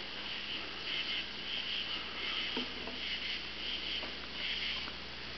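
Night insects chirping outdoors, a steady chorus of short high chirps pulsing roughly twice a second.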